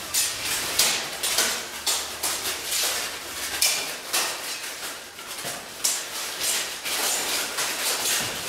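Steel longswords clashing and striking plate armour in a fencing bout, an irregular run of sharp metallic clanks several times a second, with the plates rattling as the fighters move.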